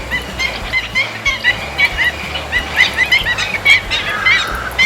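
A flock of birds calling together: a dense chorus of short, rapid chirps overlapping several times a second.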